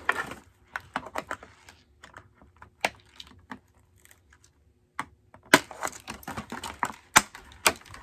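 Irregular sharp clicks and snaps of plastic doll packaging and its ties being cut and pulled as a fashion doll is freed from its box, with a short lull about four seconds in.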